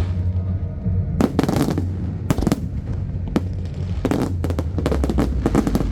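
Aerial fireworks bursting, with quick clusters of sharp crackling cracks every second or so over a steady low rumble.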